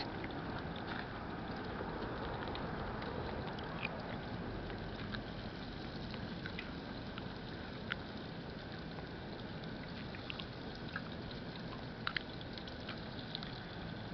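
Hot oil in a turkey deep fryer sizzling with a steady hiss, with scattered sharp pops and crackles.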